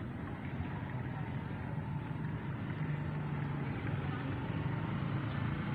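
Low, steady engine hum that grows slightly louder a few seconds in, over a steady outdoor noise bed.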